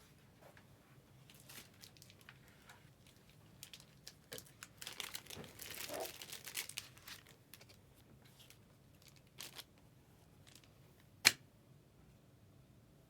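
Plastic wrapping crinkling and tearing as a pack of trading cards is opened, mostly in a cluster of crackling from about four to seven seconds in, then a single sharp click near the end.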